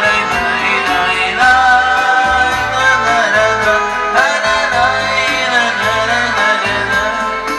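Karaoke-style backing track playing its instrumental intro: a held, gliding lead melody over bass and a steady beat.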